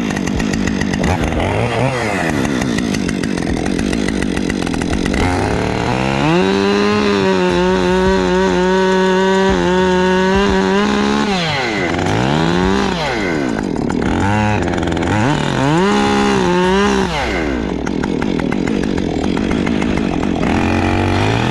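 Petrol chainsaw engine revving up and down several times, held at high revs for a few seconds in the middle, then dropping back and blipping the throttle again.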